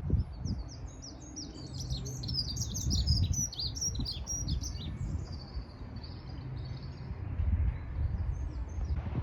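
A small songbird singing a fast run of high chirps and trills for about the first five seconds, then fainter, over a low rumble.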